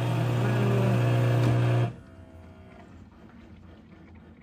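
Keurig K3500 commercial coffee brewer humming loudly and steadily as it starts a brew cycle, then cutting off suddenly about two seconds in, leaving only faint low sounds.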